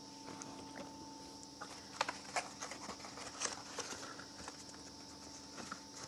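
Irregular light clicks and taps of small handlebar grip parts being picked up and handled, over a steady high insect drone.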